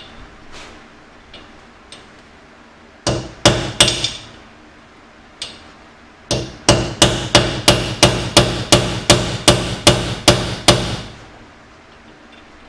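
Hand hammer striking a steel air-hammer bit used as a drift, driving out a rear differential's pinion bearing race. A few blows come about three seconds in, then a steady run of about fifteen sharp metallic blows, roughly three a second, which stops a couple of seconds before the end.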